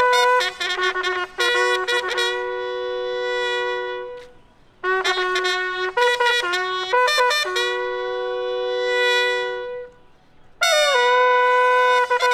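Bugle call sounded for the border flag-lowering ceremony. It has quick runs of notes and long held notes of about two seconds each, broken by two short pauses.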